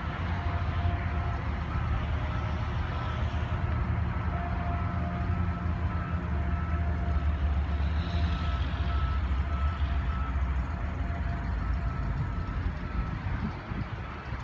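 A heavy vehicle's engine rumbling steadily, with a faint repeated high beep over it. The rumble eases off near the end.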